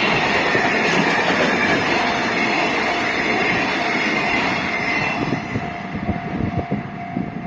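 Freight train wagons rolling past, a steady rumble of wheels on rail with a thin high-pitched squeal over it. The noise eases a little near the end, then cuts off suddenly.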